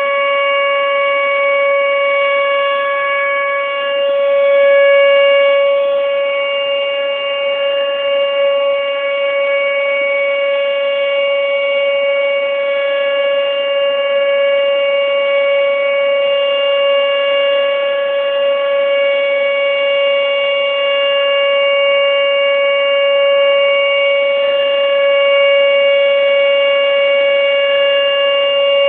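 Outdoor tornado warning siren sounding its weekly test: one loud, steady held tone with a slight swell about five seconds in, heard through a cell phone microphone.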